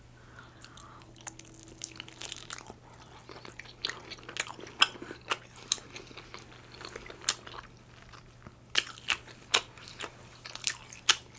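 Close-miked chewing of a soft cheese-topped bread slice: wet mouth clicks and smacks at an irregular pace, louder in the second half, over a faint steady low hum.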